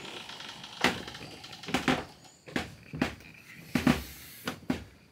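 Footsteps climbing wooden stairs: about seven heavy footfalls, a little under a second apart.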